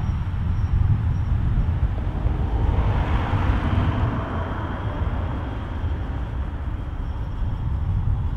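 Wind buffeting the microphone, a heavy uneven low rumble, with a broad rush of noise swelling about three seconds in and fading again; a faint thin high whine is heard near the start and near the end.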